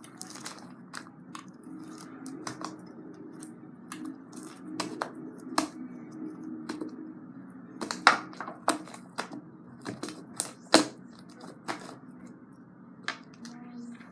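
Slime being squished and poked by hand, making irregular sharp pops and clicks, the loudest about 8 and 11 seconds in, over a steady low hum.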